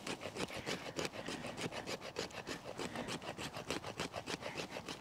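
Stainless steel blade of an Ezonda fixed-blade knife scraping a maple stick, held crosswise and drawn down the wood in quick, even strokes, several a second, to raise fuzz.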